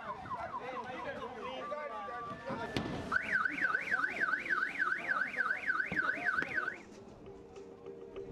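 Car alarm cycling through its tones: a run of quick falling chirps, a short steady tone, then a fast up-and-down warble at about four cycles a second. The warble stops shortly before the end.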